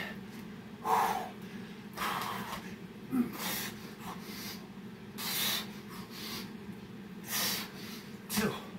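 A man's heavy breathing from exertion: sharp, noisy breaths every second or two, with a steady low hum underneath.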